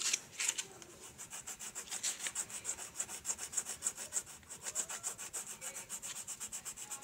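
Colored pencil shading on notebook paper: quick back-and-forth scratching strokes, about six a second.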